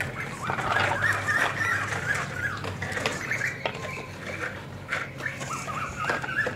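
Small birds chirping in quick, repeated short notes, with a few light clicks.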